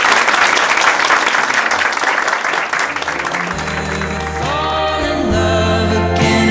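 A small group of people applauding, the clapping dying away over the first few seconds. About halfway through, a song comes in with a steady bass line and a singing voice.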